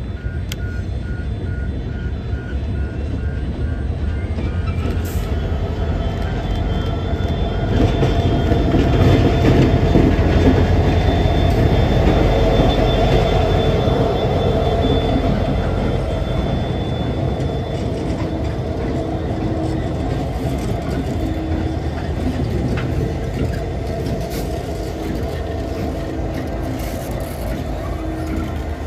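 Queensland Rail 2900 class diesel locomotives running past with a short train, a heavy engine rumble that builds to its loudest about a third of the way through and then slowly eases. A level crossing warning bell rings faintly and repeatedly under it.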